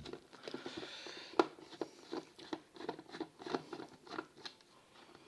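Light clicks and short scrapes of a screwdriver working screws out of a plastic charger casing, with one sharper click about a second and a half in.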